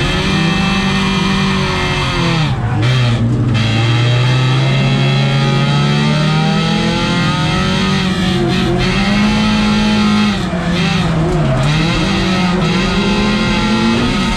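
Folk-race car's engine heard from inside the stripped cabin, revving hard while racing on gravel. Its pitch drops and climbs again several times as the driver shifts or lifts off, including one long steady climb in the first half.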